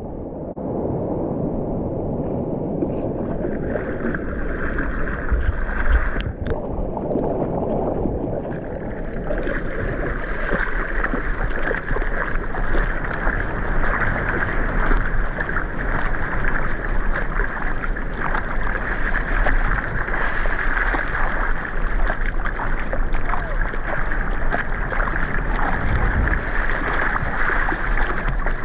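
Sea water sloshing and splashing close around a surfboard as it is paddled by hand: a steady wash of water with fine splashes, the splashing growing denser about nine seconds in.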